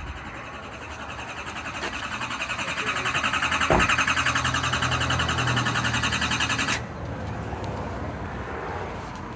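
Chevrolet Silverado 2500 HD Duramax diesel being cranked by its starter, with an even pulsing rhythm of compression strokes, without catching, then the cranking cuts off abruptly near the end. It is a brand-new truck that cranks but will not start, which an engineer traced to a false injector fault set off by an electrical spike.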